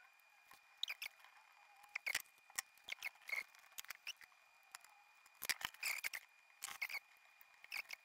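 Faint, irregular crackles and squeaks of flux boiling under a soldering iron as copper desoldering braid wicks lead-free solder off a rotary switch's pins. A faint steady high whine sits underneath.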